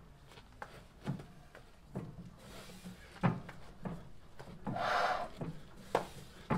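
1910 International Harvester Famous 8 hp engine being turned over by hand at the flywheel, its valve gear clacking irregularly, about once or twice a second, without the engine catching. A short hiss comes about five seconds in.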